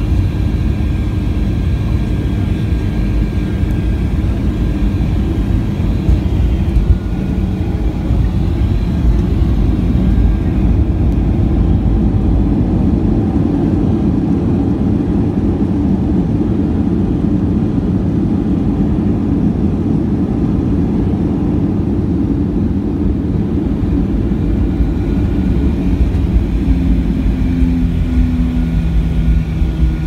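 Cabin sound of a Boeing 737-800 landing: the CFM56 jet engines and rushing air make a loud steady roar, with a short jolt about seven seconds in as the wheels touch down. The roar then swells as reverse thrust and braking slow the jet on the rollout, easing near the end as a steady engine tone comes through.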